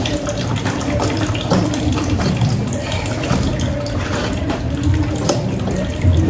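Wet squelching and slapping as a hand mixes and turns seasoned, browning-coated oxtail pieces in a stainless-steel bowl, with many small irregular clicks and squishes.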